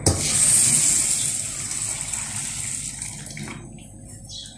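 Water pouring into a steel bowl of whole wheat grains to soak them: a steady gush that tapers off and stops about three and a half seconds in.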